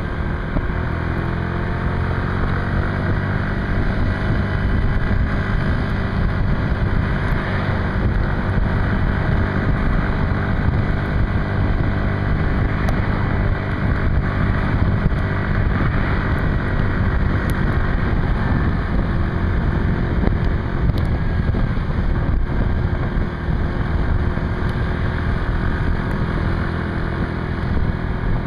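Motor scooter engine running steadily while riding along a road, with wind buffeting the microphone; the engine note shifts a little near the start.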